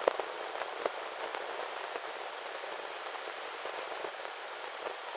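Pencil scratching on paper while sketching: a steady, scratchy hiss broken by a few sharp clicks of the pencil or hand on the paper.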